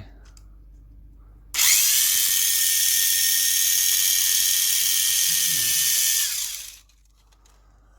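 Mini 4WD toy car's small electric motor and gear train switched on, running at a steady high-pitched whine for about five seconds, then switched off and winding down.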